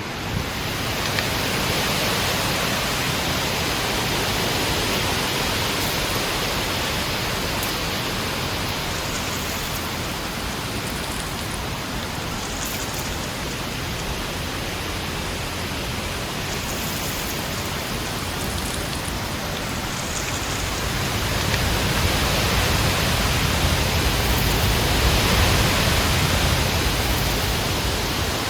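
Heavy wind blowing in a steady rush of noise, swelling into a stronger gust about three quarters of the way through and easing off near the end.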